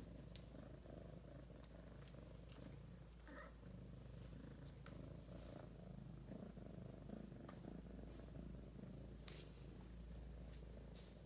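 Domestic cat purring, faint and steady, with a few faint clicks scattered through.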